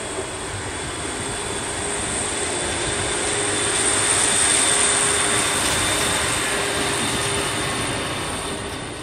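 DB class 628.2 diesel multiple unit moving off and passing: engine running under power with the wheels on the rails. It swells to its loudest about halfway through, then fades as the train draws away.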